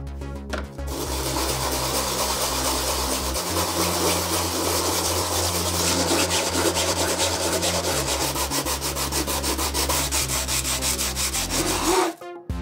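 A blue FDM 3D-printed plastic part rubbed quickly back and forth on a sheet of sandpaper laid flat, smoothing off the print's layer lines. The scratchy rubbing starts about a second in and stops abruptly near the end.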